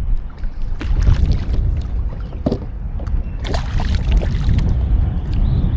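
Low rumble of wind on the microphone, with water sloshing and a few short knocks against a kayak as a hooked redfish is drawn alongside.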